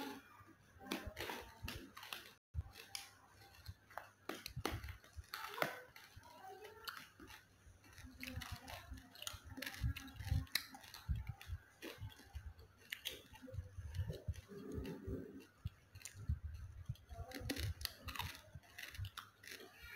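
Metal spoon and fork clicking and scraping against a plastic tray while gathering instant noodles, with close-up chewing of a mouthful of noodles. The sharp clicks come irregularly throughout, with soft mouth sounds in between.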